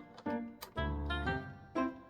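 Background music: a light, bouncy instrumental tune with plucked or struck notes about twice a second over a bass line.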